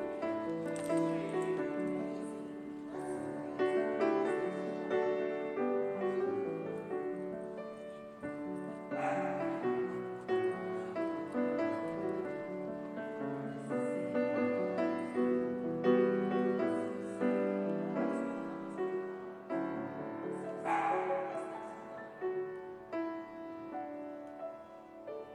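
Slow keyboard music in held chords, each chord struck and then fading.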